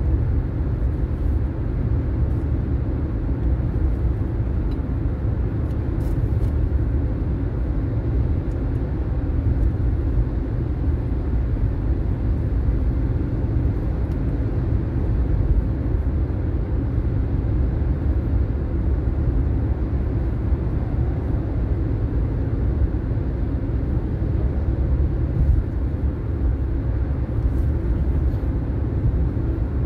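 Steady low road and engine rumble inside a moving car.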